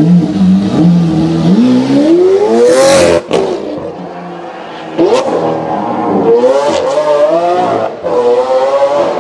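Lamborghini Aventador's V12 idling, then revving hard as it accelerates away, its pitch climbing through the gears. A sharp crack about three seconds in is followed by a quieter stretch, then the revs surge and climb again about five seconds in and once more near the end.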